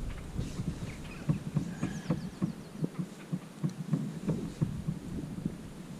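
A run of irregular soft knocks and thumps, several a second.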